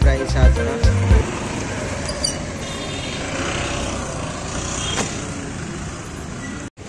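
Background music with a beat for about the first second, then the steady noise of road traffic on a busy market street. The sound cuts out briefly near the end.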